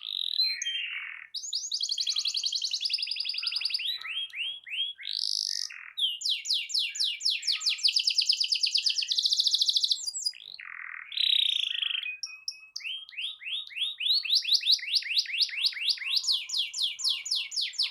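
Domestic canary singing a long, continuous song of fast rolling trills, repeated chirps and whistled notes, changing tour every second or two.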